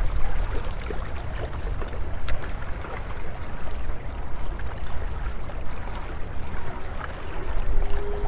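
Small waves lapping and trickling against jetty rocks over a low, uneven rumble, with a sharp click about two seconds in.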